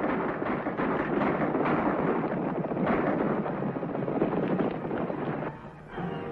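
Loud action sound effects from an old film soundtrack: a dense rumbling din packed with sharp cracks and impacts. It drops away about five and a half seconds in, and music comes in at the very end.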